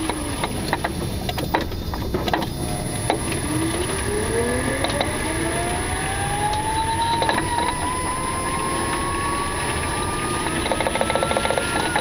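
2018 Nissan Leaf heard from under the bonnet pulling away: the electric power steering buzzes as the wheel is turned to three-quarter lock, and a whine rises steadily in pitch from about three seconds in. Near the end a fast, regular knocking starts, the car's new knocking fault.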